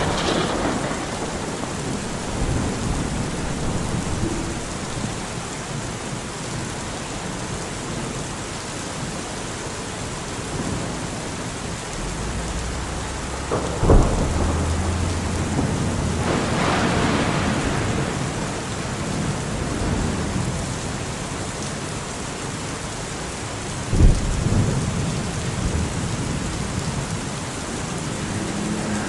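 Steady rain with thunder: low rolling rumbles and two sharp claps, one about halfway through and another some ten seconds later.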